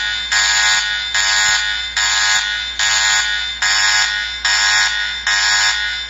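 Emergency alert alarm: a harsh, buzzy tone sounding in repeated pulses a little over one a second, each starting sharply and fading slightly before the next.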